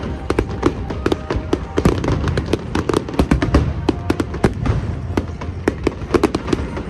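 A fireworks display going off: many sharp bangs and crackles in quick succession, several a second, over a steady low rumble.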